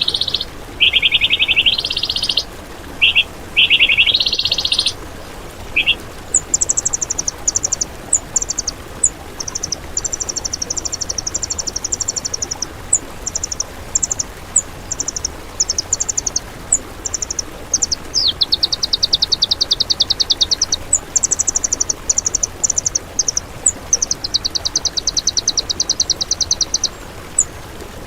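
Songbird singing in rapid trills: rising trilled phrases for the first six seconds or so, then higher, faster trills in short bursts with pauses between them, over a steady faint hiss.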